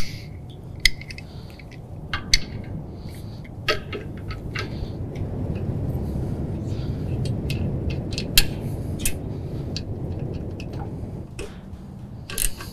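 Scattered metallic clicks and clinks from a carriage bolt, washer, nut and 13 mm socket as an LED work light is bolted onto a brush guard, over a low steady rumble that grows louder through the middle.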